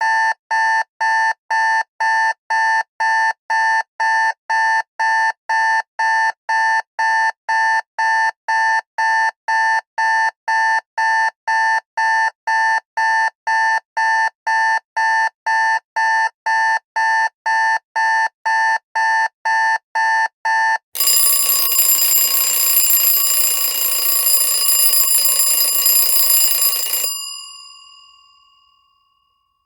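Alarm clock beeping rapidly, about two beeps a second. About 21 seconds in it gives way to a continuous ringing alarm that cuts off suddenly around six seconds later, its tone dying away over a couple of seconds.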